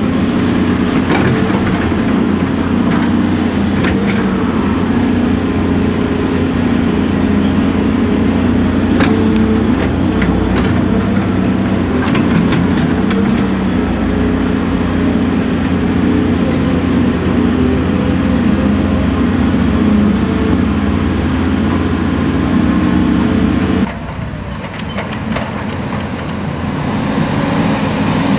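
Caterpillar 330C excavator's diesel engine running under load as it digs, with scattered clanks and rattles of rock against the steel bucket. About three-quarters through, the sound cuts to a quieter one: an articulated dump truck's engine growing louder as it approaches.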